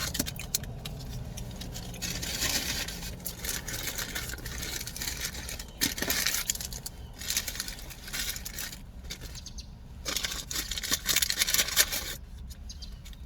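Fast-food paper and plastic packaging being handled: rustling and crinkling with small clicks and scrapes, easing off near the end.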